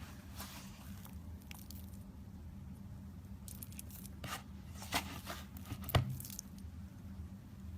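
Slime being worked by hand: soft crackling and tearing sounds, with two sharper pops about five and six seconds in.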